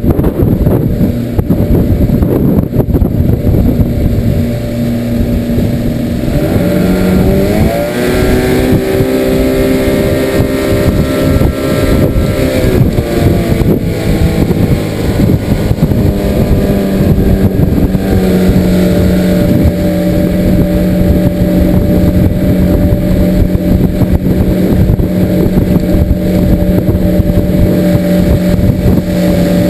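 Outboard motor pushing a small skiff over a rush of wind and water. Its pitch rises about seven seconds in as it speeds up, eases back down a few seconds later, then runs steady.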